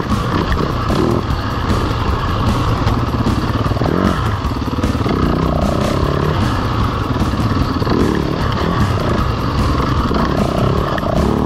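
Yamaha dirt bike engine being ridden along a forest track, its revs rising and falling with the throttle.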